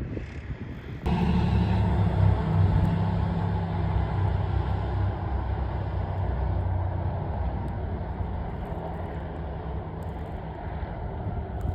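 A vehicle engine running steadily with a low hum. It comes in abruptly about a second in and slowly fades.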